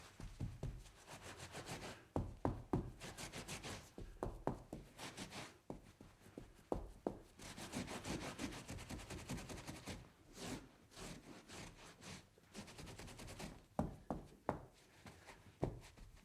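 Cleaning up a spill: irregular wiping and rubbing on a hard surface, broken by scattered sharp knocks and clunks of things being handled.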